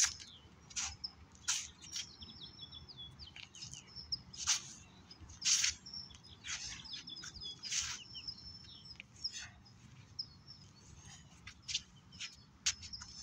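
Birds chirping in short high calls, over a dozen or so sharp, irregular scuffs and swishes from a person's footwork and arm movements in a kung fu form on a hard court.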